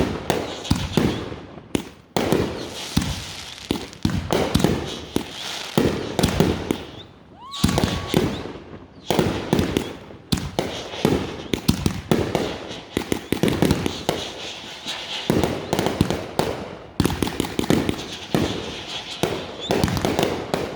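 Fireworks going off in quick succession: clusters of sharp bangs and crackling every second or two, each dying away before the next.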